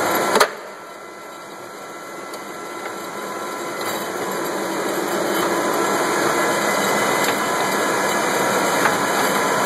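Taiyo Seiki turret lathe running, a steady mechanical noise with a few faint steady tones. A sharp click comes about half a second in; the noise then drops and builds back up over the next few seconds.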